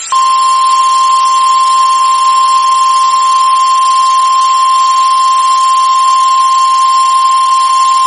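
NOAA Weather Radio warning alarm tone: a single loud, steady tone at about 1050 Hz over faint radio hiss. It is the signal that a warning broadcast follows.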